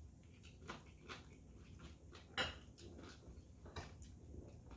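Faint eating sounds of someone chewing fried chicken: scattered small mouth clicks and smacks, with one sharper tap about two and a half seconds in.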